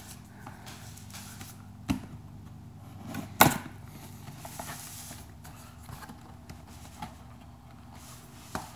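Cardboard box being handled and turned on a tabletop: two knocks, the second and louder about three and a half seconds in, with light taps and rustles between, over a faint steady low hum.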